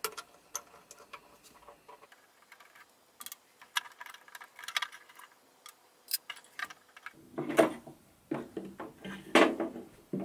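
Scattered clicks and clinks of bolts and small metal parts being handled while taking apart a lathe's stepper motor mount, then louder knocks and rattles from about seven seconds in as the stepper motor is worked free.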